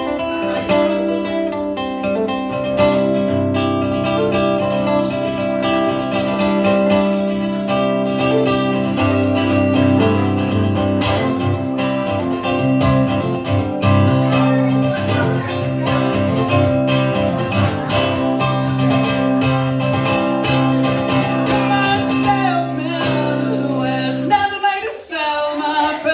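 Band playing an instrumental passage of a song: strummed acoustic guitar over held bass notes, with a short break in the low end near the end.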